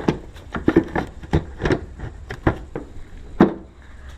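Plastic tail light housing and its wiring being handled and worked into place: a quick series of light knocks, taps and rustles, with one sharper knock near the end.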